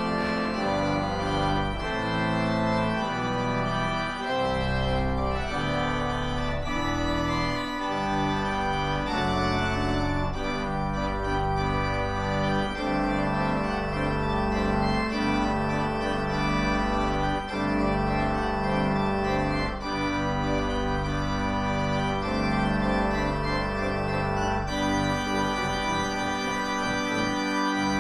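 Organ music: held chords that change every second or two over a bass line of short repeated notes.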